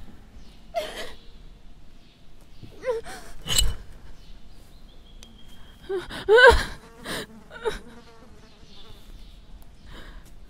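A woman gasping and crying out in several short, breathy bursts that rise in pitch, the two loudest about three and a half and six and a half seconds in.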